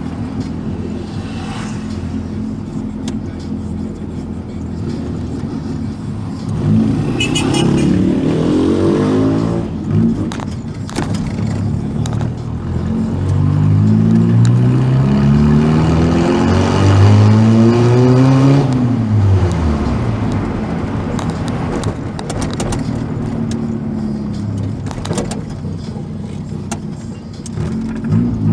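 A Volkswagen Gol's engine and loud aftermarket exhaust running while the car is driven. It accelerates twice with rising pitch, about a quarter of the way in and again near the middle, then drops off sharply a little past two-thirds of the way through.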